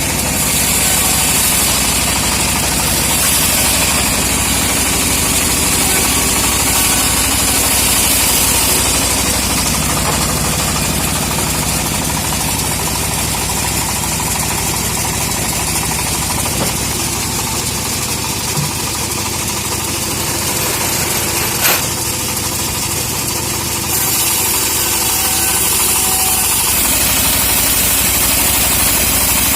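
Homemade engine-driven sawmill running steadily as it saws a teak log, with one sharp knock about two-thirds of the way through.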